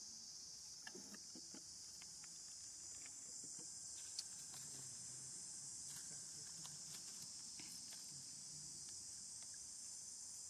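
A steady, high-pitched insect chorus, with faint scattered clicks and one sharp tick about four seconds in.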